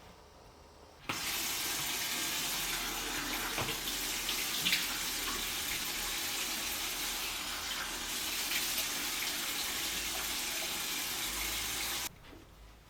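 Water running steadily, as from a tap. It comes on suddenly about a second in and stops abruptly near the end, with a few light clicks during the flow.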